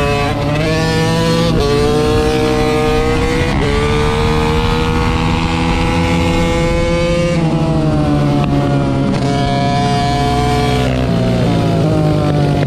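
Small mini-motorcycle engine running hard under way, its pitch climbing and then dropping back sharply several times, around one and a half, three and a half, seven and a half and eleven seconds in.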